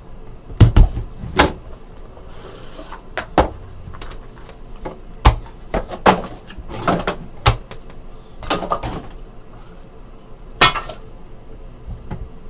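Hands opening and handling a cardboard trading-card hobby box: a tape seal peeled off near the start, then scattered knocks, taps and rustles of cardboard lifted and set down on a table.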